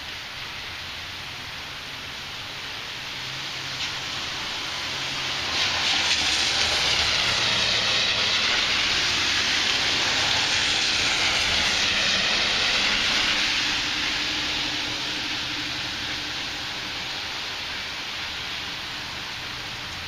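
Steady rainfall, with a loud rushing hiss that swells up about five seconds in, holds for several seconds and fades again by about fourteen seconds.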